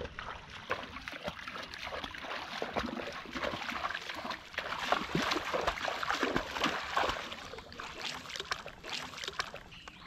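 Someone wading through shallow water: a continuous, irregular run of splashes and sloshing water.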